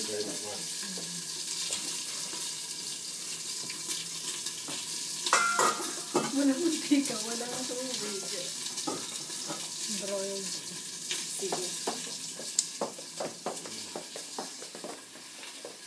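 Stovetop cooking in a kitchen: a steady sizzling hiss with scattered clicks and clinks of pots, lids and utensils.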